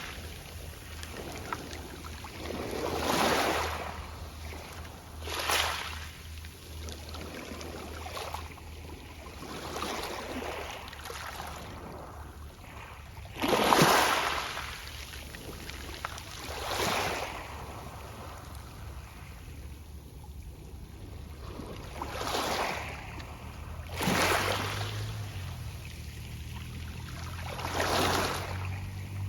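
Small sea waves washing onto a pebble beach, each wash with the soft rustle of pebbles, coming in about every two to four seconds; the biggest breaks about 14 seconds in. A steady low hum runs underneath.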